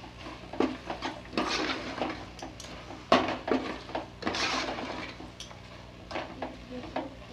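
Metal ladle scraping and knocking against the sides of a metal cooking pot as chicken pieces in a thick spice masala are stirred, in irregular strokes.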